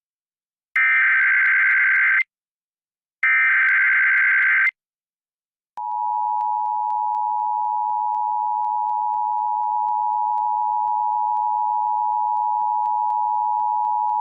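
Emergency Alert System broadcast: the last two bursts of the SAME header's digital data screech, each about a second and a half long with a gap between, then about six seconds in the steady two-tone EAS attention signal (853 and 960 Hz) starts and holds. Together they announce an Amber Alert, a child abduction emergency.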